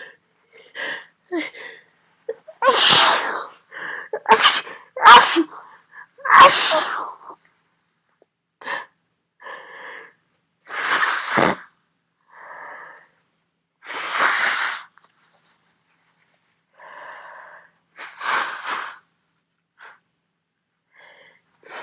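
A fit of loud sneezes from a person with a heavy head cold. Four come in quick succession a few seconds in, then three more follow a few seconds apart.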